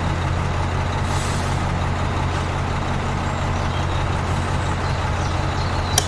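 A steady, heavy engine-like rumble with a hiss over it, like a truck engine running, that cuts off abruptly near the end.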